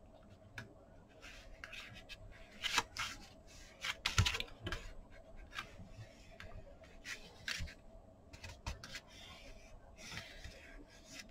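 Kraft card stock being handled and pressed on a cutting mat: irregular scrapes, rustles and light taps of cardboard, the loudest about three and four seconds in.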